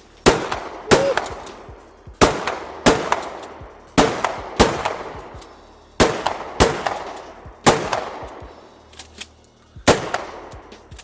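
DP-12 12-gauge double-barrel shotgun firing about ten shots, mostly in quick pairs about two-thirds of a second apart, with a pause of a second or more between pairs, each shot ringing out briefly.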